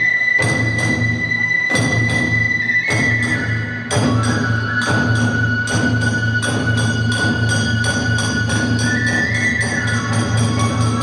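Kagura ensemble playing: a bamboo flute holds long high notes, stepping down in pitch partway through, over drum and hand-cymbal strikes that quicken to a steady fast beat from about four seconds in.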